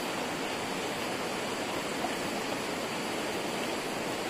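Shallow river water running steadily over and between rocks.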